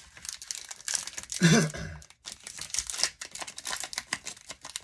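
Foil wrapper of an Upper Deck Series One hockey card pack crinkling and tearing as it is opened by hand. A short hummed vocal sound comes about a second and a half in.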